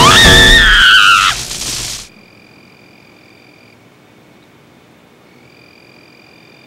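A woman's shrill shriek that rises sharply, holds, and sags before stopping, over a loud noisy burst that cuts off about two seconds in. It is followed by quiet with a faint steady high-pitched hum that drops out briefly about halfway through.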